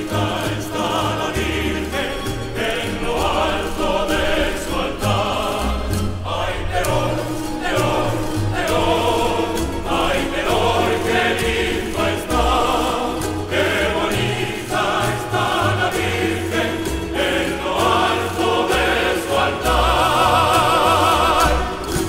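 Music: a choir singing a Spanish devotional folk song with instrumental accompaniment and a bass line, closing on a long held note with vibrato near the end.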